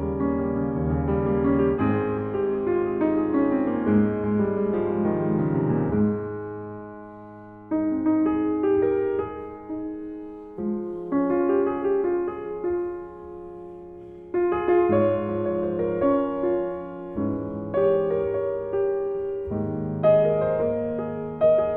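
Solo piano playing a slow, classical-style piece: held chords and a falling run of notes, with phrases left to ring out and fade before the next chords are struck.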